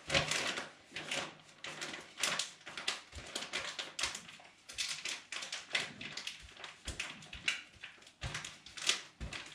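Plastic freezer bags crinkling and rustling in a quick, irregular run of crackles as hands fill them with minced meat and press them flat.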